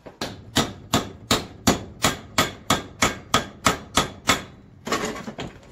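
A hammer striking repeatedly in a steady run, about three blows a second, about a dozen in a row, then a brief rougher clatter near the end. It is most likely a hand hammer working a metal mounting bracket.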